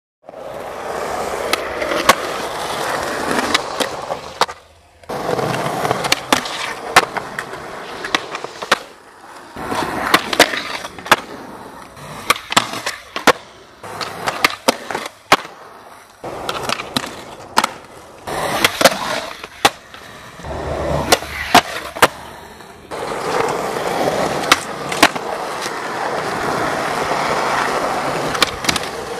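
Skateboard wheels rolling over concrete with many sharp clacks of the board popping and landing during tricks. The rolling drops out briefly twice, where shots are cut together.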